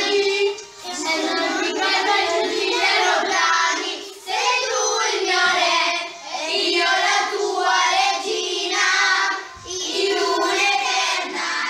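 Group of children singing a song together in chorus, in phrases a few seconds long with short breaks between them.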